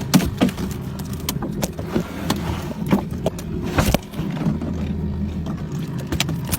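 Boat motor running steadily, with scattered knocks and clatter over it.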